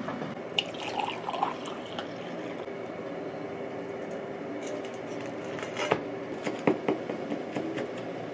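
Toast frying in a pan with a steady low sizzle and faint crackling, with light scrapes and clicks of a wooden spatula and chopsticks. A few sharp knocks come about six to seven seconds in as the toast goes onto a wooden cutting board and a knife cuts it.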